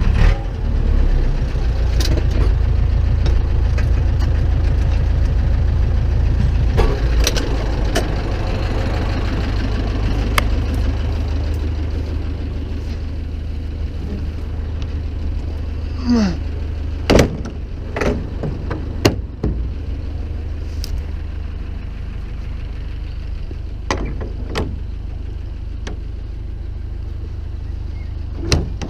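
Zetor 7745 tractor's four-cylinder diesel engine idling steadily, with a few sharp knocks in the second half.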